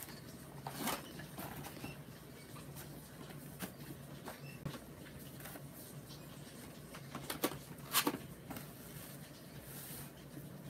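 Light, scattered clicks and knocks of plastic blister-card toy car packages being handled and set down, the sharpest ones about a second in and twice in quick succession about three-quarters of the way through, over a faint steady low hum.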